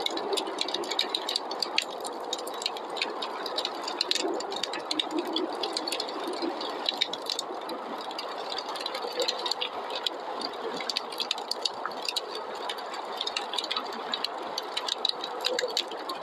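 Wood fire crackling, with frequent sharp pops and snaps over a steady rushing noise of snowstorm wind.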